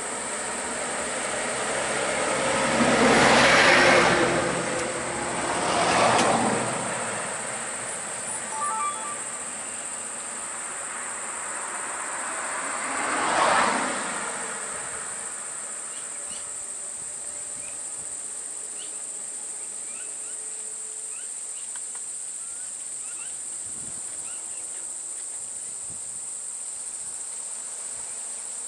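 Road vehicles, a bus among them, passing close by, heard as three swells of engine and tyre noise in the first half. Underneath is a steady high-pitched insect drone.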